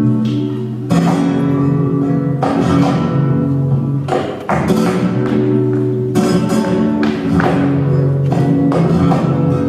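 Flamenco guitar music, with strummed chords struck hard every second or two and left to ring.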